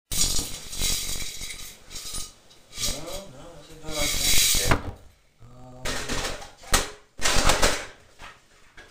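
Someone rummaging through objects on a wooden dresser top, with irregular clattering and knocking as things are picked up and put down. A voice is heard briefly about midway.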